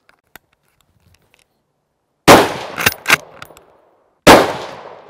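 Chapuis ROLS straight-pull rifle fired twice, about two seconds apart, each shot ringing out with a long echo. After each shot come two sharp metallic clicks as the straight-pull bolt is worked back and forward to chamber the next round.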